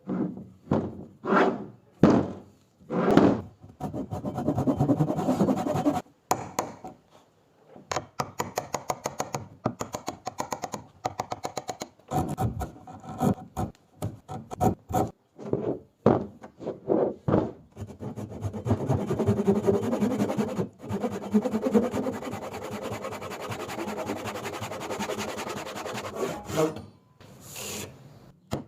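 Hand tools working wood: first a series of separate rasping strokes about once a second, then a long run of rapid sharp taps, then a long stretch of steady rubbing like sanding or filing.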